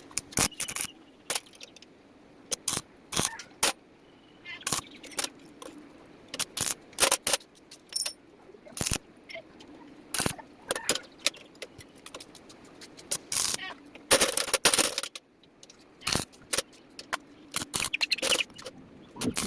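Irregular metallic clinks, taps and knocks of iron pieces being handled and struck during gate fabrication, some ringing briefly, with a longer hissing stretch of about a second and a half after the midpoint.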